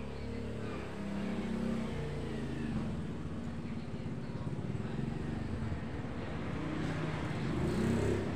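An engine running steadily, its low hum slowly growing louder toward the end.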